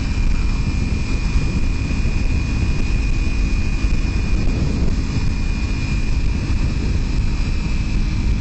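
Kawasaki Ninja 300 parallel-twin engine running at a steady cruise under heavy wind and road rumble on the microphone, with a steady high whine over it.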